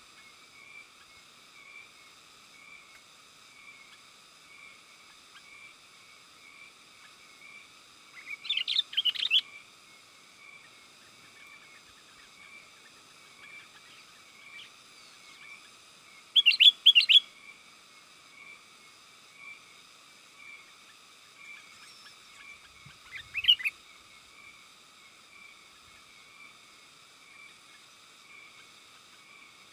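Sooty-headed bulbul (kutilang) singing three short, loud bursts of chattering song, about 8 seconds apart, over a steady pulsing background chorus.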